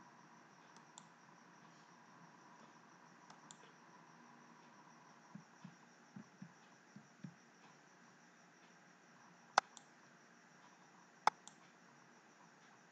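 Faint steady hiss with a few soft low knocks, then two sharp clicks from a computer mouse, about a second and a half apart, a little past the middle and near the end.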